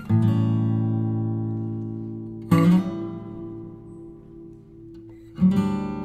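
Slow relaxing background music on acoustic guitar: three strummed chords, each left to ring out and fade before the next.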